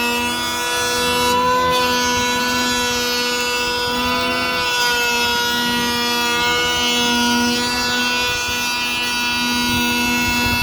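DeWalt cordless handheld planer running steadily while planing a wooden door, its motor and cutter head giving a loud, even whine at one constant pitch.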